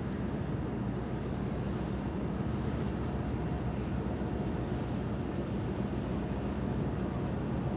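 Steady low drone and hum of a large cruise ship's engines and machinery as the Azamara Pursuit moves past.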